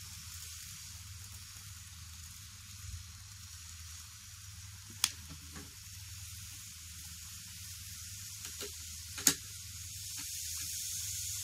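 N-gauge model train (KATO EF57 electric locomotive hauling fifteen coaches) running on track: a steady hiss with a low hum underneath. There are two sharp clicks about five and nine seconds in, and the hiss grows louder near the end.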